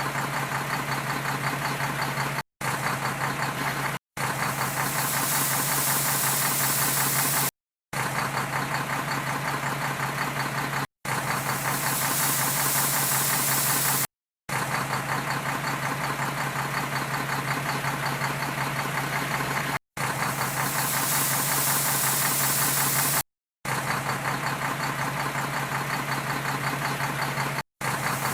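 Diesel engine of heavy earthmoving machinery running steadily with a clattering low hum, heard in short clips broken by about eight abrupt silent cuts. In three of the clips a loud hiss joins the engine noise partway through.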